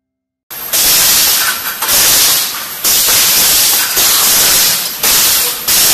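Automatic aerosol can filling line running, starting about half a second in, with loud hissing bursts about once a second in a regular cycle and a lower steady machine noise between them.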